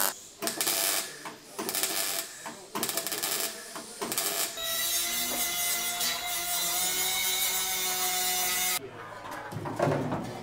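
MIG welding crackling and sputtering in short, irregular bursts for about four seconds, then a handheld power tool running steadily with a whine for about four seconds on the car body shell, stopping abruptly; quieter knocks of parts being handled follow near the end.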